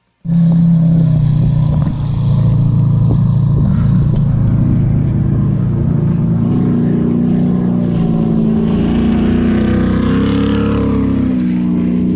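Off-road race vehicle's engine running hard at high revs close by, loud. Its pitch climbs and wavers in the second half.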